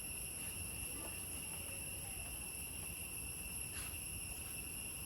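A steady, high-pitched chorus of insects chirping, with a faint low background hum.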